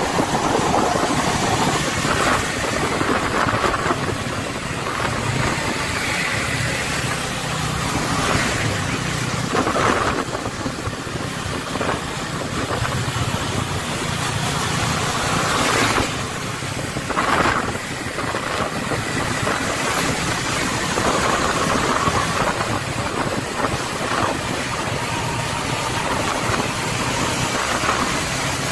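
Road traffic heard on the move: vehicle engines running steadily under an even rush of wind and tyre noise. A few brief louder rushes stand out.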